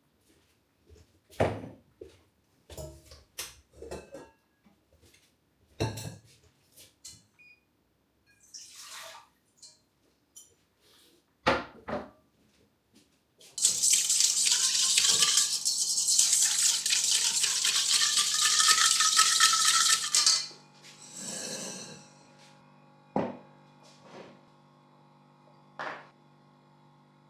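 Dishes and utensils knocking and clinking. Then a tap runs hard into a container for about seven seconds, its pitch rising as the container fills, and cuts off suddenly. A steady low hum is left under a few more knocks.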